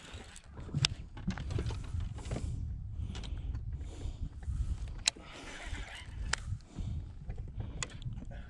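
Wind buffeting the microphone, with sharp clicks and the whir of a baitcasting reel being cranked to bring in a hooked fish.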